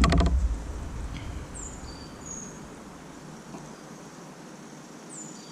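A brief loud clatter and thump right at the start, then a steady outdoor background with a few short, high bird chirps that fall in pitch.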